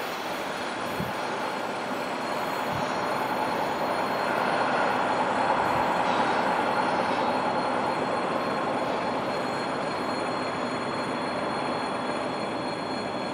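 MPT rail motor car running along a curved track as it moves away: a steady rolling rail noise that swells about midway and then slowly fades.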